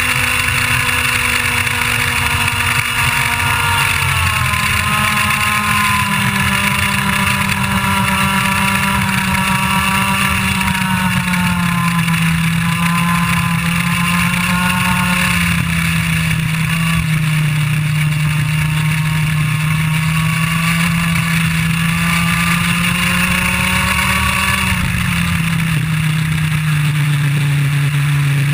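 IAME Leopard 125cc two-stroke kart engine running at high revs at speed, its note dropping about four seconds in as revs fall from near 14,800 rpm, then sinking further to around 8,500 rpm, with a second drop near the end. Wind rush runs under it, along with the engine of another kart just ahead.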